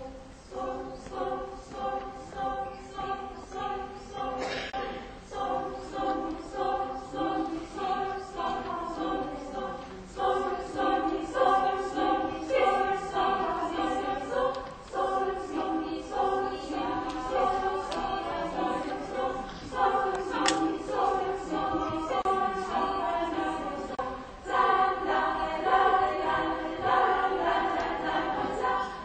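Women's choir singing a cappella in short, rhythmic notes, growing louder about ten seconds in and again near the end.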